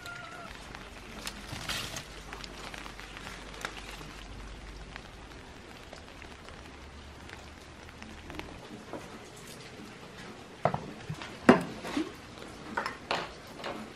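Steady light rain pattering, with scattered small ticks. Near the end come a few sharp knocks and clatters, the loudest about three quarters of the way through.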